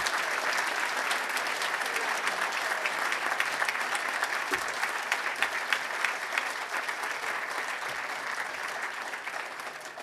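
Audience applauding, a dense patter of many hands clapping that slowly tapers off near the end.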